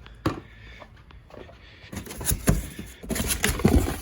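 A sharp click, then from about halfway in a run of irregular knocks and clatter: small metal parts and loose bolts being gathered up and handled.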